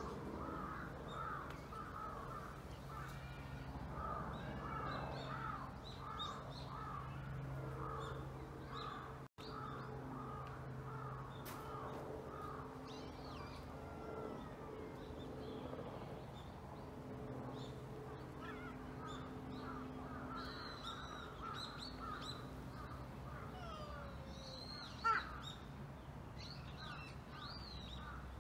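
Outdoor birds calling over and over, roughly two harsh calls a second, thinning out after the first half, with smaller birds chirping higher up later on. A faint steady low hum runs underneath, and there is one sharp click near the end.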